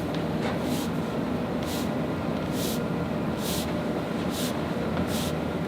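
Steady low room rumble, with a short soft hiss about once a second.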